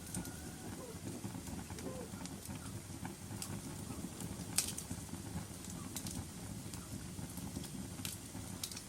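Wood fire burning in a fireplace: a steady low rumble of flames with scattered sharp crackles and pops, the loudest about four and a half seconds in.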